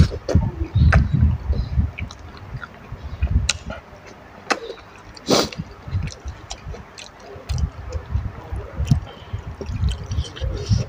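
Close-up wet eating sounds: chewing and slurping of khanom jin rice noodles in thick curry sauce, with irregular mouth clicks and smacks and one louder sharp mouth sound about five seconds in.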